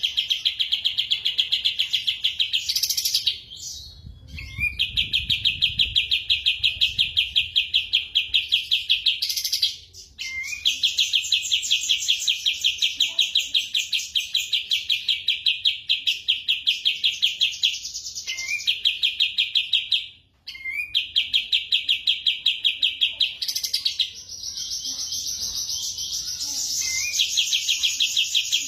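Kapas tembak songbird singing: long, very fast high trills, each several seconds long and opening with a short rising note, broken by brief pauses.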